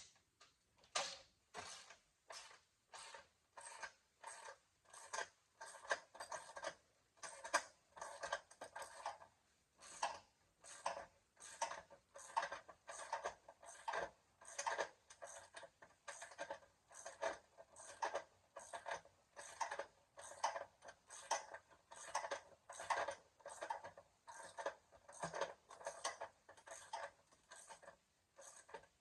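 Hand ratchet wrench clicking in short bursts, about two a second, as it is worked back and forth to back off the vise's mounting nuts.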